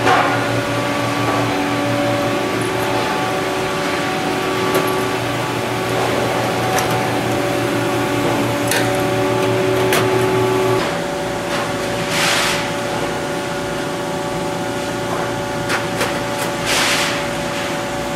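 Steady workshop machine hum that shifts in pitch partway through, with scattered light metallic clicks and two short hisses in the second half.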